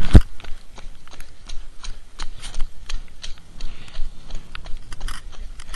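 Running footsteps slapping on a wet path, an irregular patter of several runners' shoes, about two to four steps a second, with a heavy thump right at the start and a low rumble from the camera being carried on the run.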